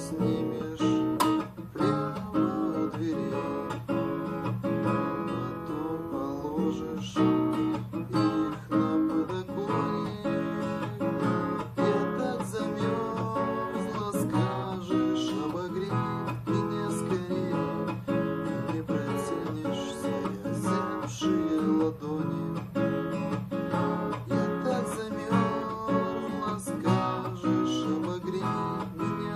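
Guitar playing a piece meant to imitate bells, with notes plucked in quick succession and left to ring.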